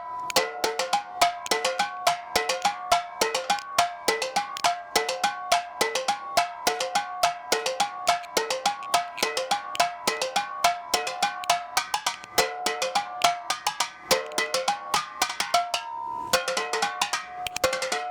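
Improvised bell made from discarded metal, struck with a drumstick in a fast, steady rhythmic pattern. The strokes ring at two or three clear pitches, used as a cheap substitute for a bought percussion bell.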